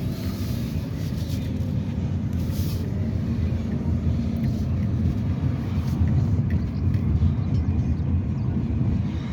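Heavy military HEMTT trucks' diesel engines rumbling steadily, slowly growing louder, with two short hisses near the start.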